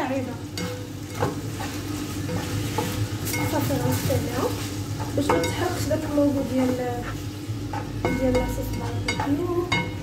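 Food sizzling in a frying pan while a spatula stirs it, with occasional scrapes and knocks of the spatula against the pan.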